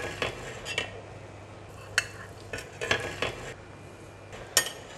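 Metal spoon clinking against a porcelain plate and the rim of a stainless steel pot as soft tofu is pushed off the plate into boiling soup: several sharp clinks, the loudest near the end, over a steady low hum.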